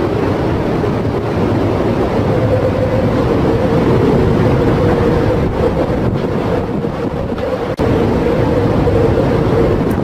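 Storm wind blasting across the microphone over heavy seas, with a steady drone running underneath and a momentary dropout about eight seconds in.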